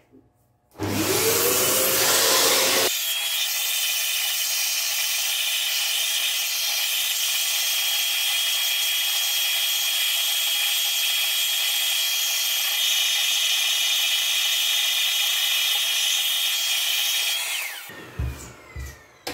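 Vacuum cleaner with a brush nozzle switched on about a second in, its motor rising in pitch as it spins up. It then runs steadily with a high whine while it sucks dust off a graphics card's fan shroud. It is switched off near the end, and the whine falls away as the motor winds down.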